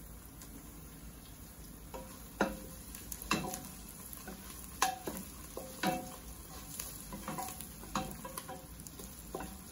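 A wooden spoon stirs onions and ginger sautéing in a stainless steel stockpot, over the sizzle of frying. From about two seconds in, the spoon knocks against the pot's sides again and again, and each knock makes the metal ring briefly.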